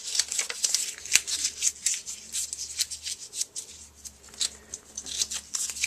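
Thin die-cut paper flower layers being crumpled and scrunched by hand to distress them: a dense run of irregular paper crackles and crinkles.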